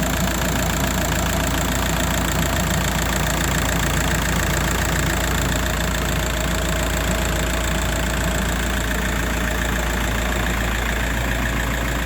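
Volkswagen Passat's 1.9 TDI four-cylinder diesel engine idling steadily, freshly refilled with new oil after an engine flush.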